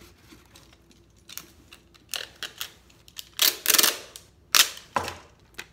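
Packaging tape pulled off a handheld tape dispenser: a long peel of about half a second, a little past the middle, then a short sharp sound as the tape is torn off on the cutter. Before that come a few light taps and crinkles of tape being pressed onto a cardboard tube.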